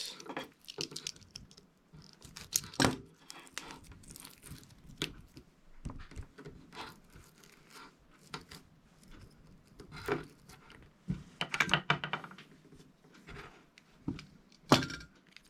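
Coaxial cable being stripped by hand: a utility knife scraping and cutting through the plastic jacket, then the braided shield being picked apart, in irregular scrapes, crinkles and sharp clicks. A sharp click near the end is the loudest sound.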